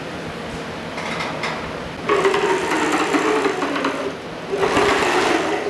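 Rattling mechanical whirring in two bursts, about two seconds in and again near the end: a CNC y-axis roller chain running over its sprockets as the gantry is moved along the axis.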